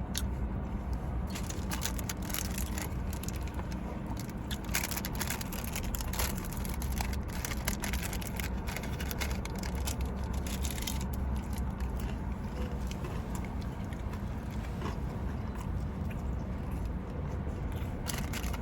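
A person biting into and chewing a crunchy taco coated in crushed hot chips, close to the microphone: repeated crisp crackles and crunches over a steady low hum.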